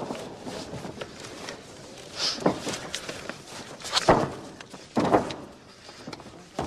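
Fight-arena ambience: a low crowd murmur broken by three short, sudden loud bursts of shouts or thumps, about two, four and five seconds in.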